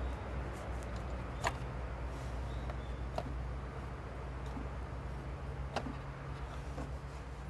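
Worn alternator and idler pulleys on a BMW 325i: a steady hiss over a low hum, broken by three sharp ticks. The noise is the sign of bad pulley bearings.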